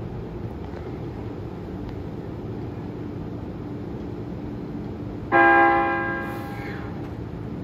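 Seibu 40050-series electric train's warning horn giving one loud blast about five seconds in, held for about a second and then fading away, sounded as the train sets off. A steady low hum runs underneath.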